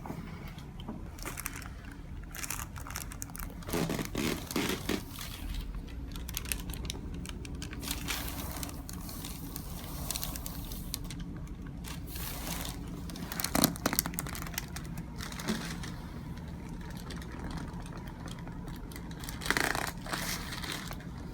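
Hands rubbing and working over a patient's body and clothing during massage and active release treatment: irregular rustling and crinkling, with a few short sharp knocks, the loudest about two-thirds of the way through.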